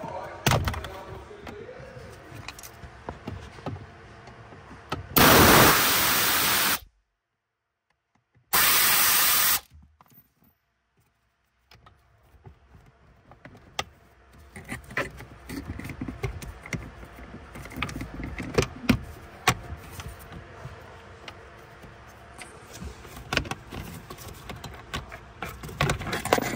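Clicks, knocks and rattles of hand tools and plastic trim panels being worked loose around a car's lower dashboard, by the pedal box. About five seconds in, two loud bursts of steady hiss-like noise start and stop abruptly, each followed by dead silence, before the clicking starts again.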